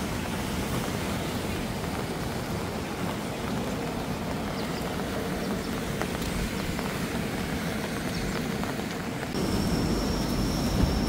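Steady outdoor noise of a wet seaside campsite, a broad hiss with low rumble such as rain, surf and wind on the microphone. About nine seconds in it changes suddenly to a slightly louder rumble with a thin steady high whine.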